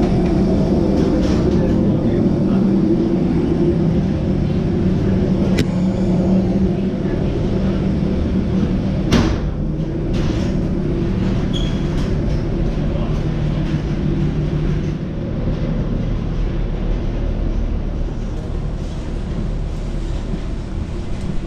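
Steady low machinery drone with a hum, as heard at an airliner's door and along the jet bridge, easing off in the second half. A few scattered knocks sound over it, the sharpest about nine seconds in.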